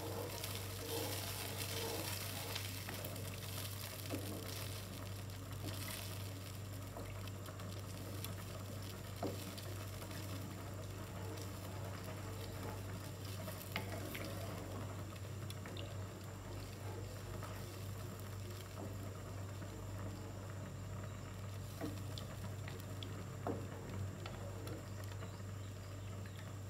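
White cheese sauce bubbling and sizzling in a nonstick frying pan while a wooden spatula stirs and scrapes through it, with a few light knocks of the spatula against the pan. A steady low hum runs underneath.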